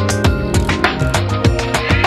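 Background music with a steady, fast beat and plucked-string melody.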